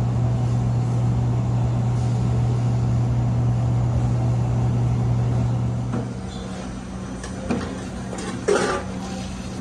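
A steady low mechanical hum from running machinery cuts off about six seconds in, leaving a quieter background hum. Two short knocks follow near the end, the second with a brief rustle.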